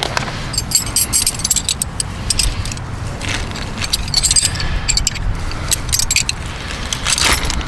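Paper instruction sheets rustling and crinkling as they are handled, with scattered sharp clicks, over a steady low rumble.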